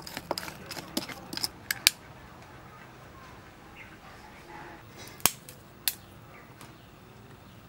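Lumps of charcoal clinking and scraping as they are moved about by hand in a clay stove, a quick run of sharp knocks for the first two seconds. Later, two sharp clicks of a lighter being flicked, about half a second apart.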